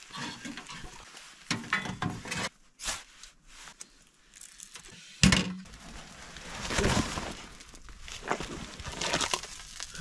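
Rustling and scuffing of clothing and a tarp floor as snow-caked winter boots are pulled off, with scattered small clicks and a sharp knock about five seconds in.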